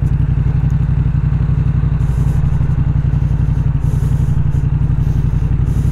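2019 Yamaha MT-07's 689 cc parallel-twin engine idling steadily through an aftermarket Arrow full exhaust with its baffle fitted and no catalytic converter.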